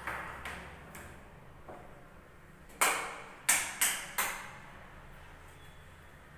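A door latch clicks as the bathroom door is opened. A few seconds later come four sharp taps, each ringing briefly off the hard tiled walls of the empty bathroom.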